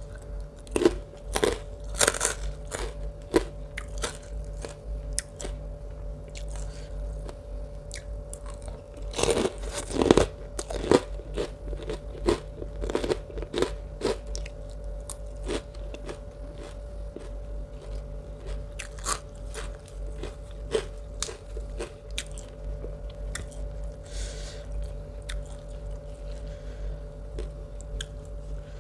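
Close-miked crunching and chewing of crisp food, puffed pork crackling and raw vegetables, in many sharp bites, loudest in bursts about two seconds in and again around ten seconds in, then steadier crunching. A faint steady hum runs underneath.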